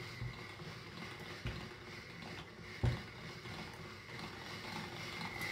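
Hand-cranked chrome pasta machine rolling a sheet of dough thinner at setting 5, the crank turning the steel rollers with a steady low rhythmic rattle of the gears. A few soft knocks, the sharpest about three seconds in.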